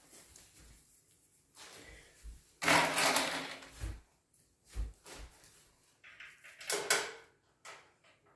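Steel fire pit table panels being handled and fitted by hand: a loud scraping rustle about three seconds in, a couple of dull knocks, and another scrape near the end.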